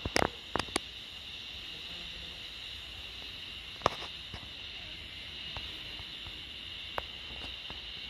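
Steady high-pitched insect chorus with a few sharp clicks in the first second and single louder clicks about four and seven seconds in.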